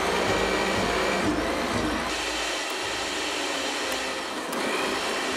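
Kitchen blender running steadily, churning shredded paper, glue and water into pulp. The sound thins and drops slightly about two seconds in.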